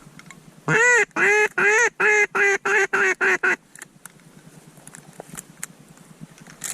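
A hunter blowing a hand-held waterfowl call: a series of about nine loud calls, the first drawn out and the rest shorter and quicker, to lure a lower-flying bird in.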